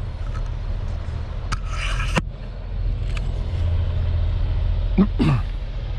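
Diesel locomotive of an approaching freight train, heard as a low, steady engine rumble that grows louder about halfway through. A short hiss sounds about two seconds in.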